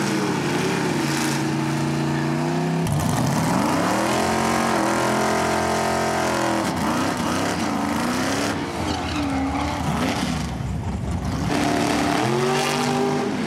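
Drag-race car engines revving at the starting line and pulling away, the pitch climbing and dropping with each rev. The sound changes abruptly about three seconds in and again near the end as it cuts from one car to the next.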